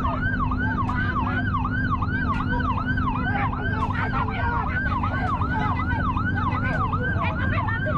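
Ambulance siren sounding a fast yelp, its pitch rising and falling about three times a second without a break, over a low rumble of idling engines.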